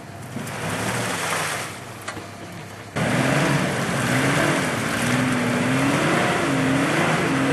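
Mitsubishi Pajero's 3.0-litre V6 engine revving under load as the SUV claws up out of a mud pit, its pitch rising and falling. About three seconds in the sound jumps abruptly louder.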